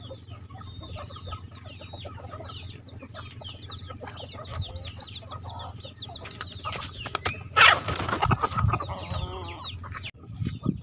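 Flock of free-range hens and roosters clucking and calling as they crowd round to be fed, with many short high calls throughout and a sudden loud, harsh burst about eight seconds in.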